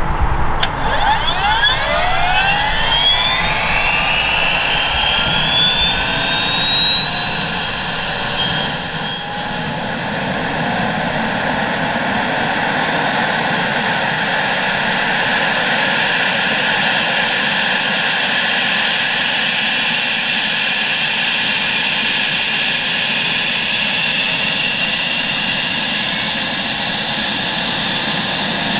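Airbus Helicopters AS355N Ecureuil 2's Turbomeca Arrius 1A turboshaft engine starting up: a whine begins about half a second in and rises steadily in pitch for roughly fifteen seconds, then levels off into a steady high whine as the main rotor starts to turn.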